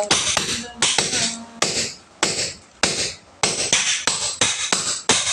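Hand hammer striking a steel chisel against hard concrete, sharp metallic clanks with a short ring, about two a second at an uneven pace, with a brief pause around two seconds in.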